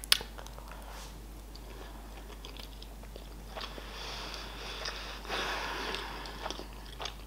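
Close-miked chewing of a sushi roll: a sharp click right at the start, then quiet wet chewing with small clicks, louder for a moment about four seconds in and again about five and a half seconds in.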